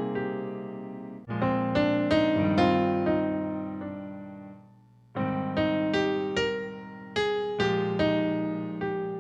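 Solo piano playing slow phrases of struck chords and notes that ring and die away. There is a brief pause about five seconds in before the next phrase begins.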